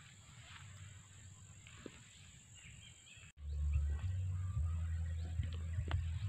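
Faint outdoor background with a few soft ticks, then an abrupt cut about three seconds in to a steady low rumble on the phone's microphone.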